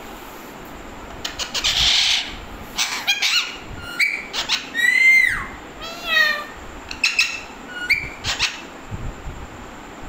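Alexandrine parakeets calling: a harsh screech about two seconds in, then a run of short sharp chattering notes and a few calls that bend and slide down in pitch, with short gaps between them.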